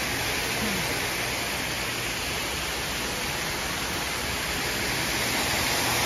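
Falling water rushing in a steady, even hiss.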